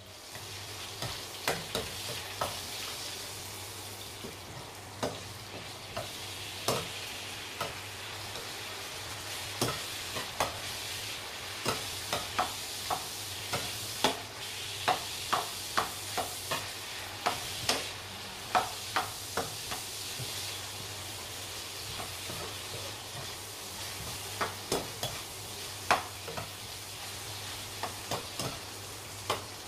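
Chopped shallots and garlic sizzling in oil in a nonstick pan, with a steady hiss, while a utensil repeatedly clacks and scrapes against the pan as they are stirred.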